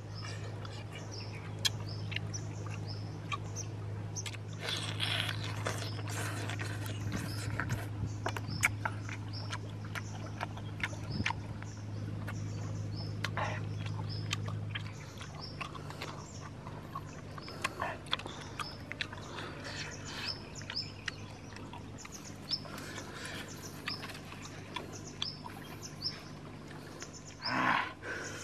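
Outdoor ambience: a bird chirping over and over, with scattered small clicks and rustles and a steady low hum that drops in level about halfway through. A short pitched call comes near the end.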